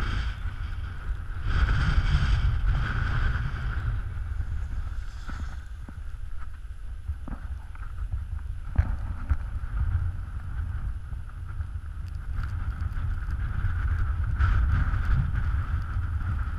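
Wind buffeting an action camera's microphone while riding downhill, with the steady hiss and scrape of snowboards sliding over thin snow, louder about two seconds in and again near the end. A couple of sharp knocks come near the middle.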